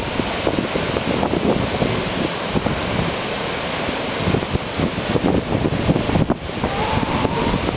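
Wind buffeting the microphone over the steady wash of ocean surf, with a faint thin wavering call near the end.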